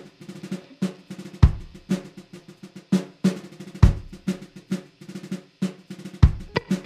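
Drum music with no melody: a steady pattern of quick snare-drum strokes, with a deep bass-drum hit three times, about every two and a half seconds.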